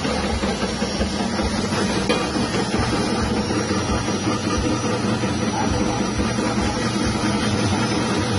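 Electric chip-slicing machine running steadily: its small 180-watt motor hums under the steady whirr of the spinning cutter as it slices potatoes into thin chips.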